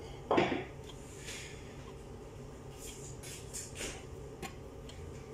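Kitchen handling sounds: a short, loud knock or scrape about a third of a second in, then faint scattered clinks and scrapes of bowls and utensils.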